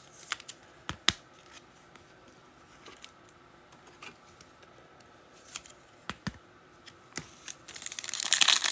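Trading cards being handled, with scattered soft clicks and snaps of card stock. Near the end, loud crinkling of a foil card-pack wrapper.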